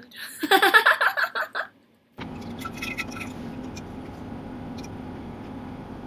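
A woman's brief wordless vocal sound, then after a short pause a steady low hum with background hiss.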